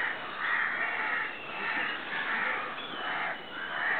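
Crows cawing, a steady run of harsh caws about one every half second.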